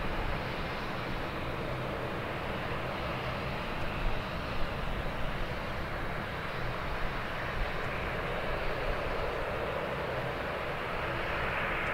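Boeing 787-8 airliner's GEnx turbofan engines running steadily as it rolls along the runway, growing a little brighter and louder near the end.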